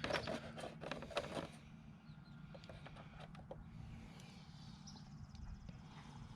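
Handling noise: a quick cluster of clicks and knocks in the first second and a half, then a few scattered light ticks, over a steady low hum.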